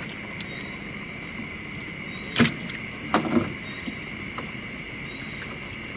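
Steady chirring of night insects, with one sharp knock about two and a half seconds in and a short cluster of knocks and rattles just after three seconds, from net, pole and fish being handled against a small boat's hull while fish are picked out of the net.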